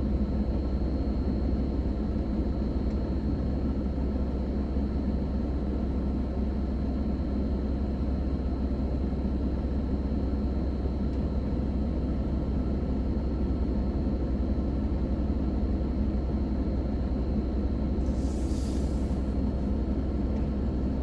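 Heavy recovery vehicle's engine running steadily with a low rumble, with a short hiss a few seconds before the end.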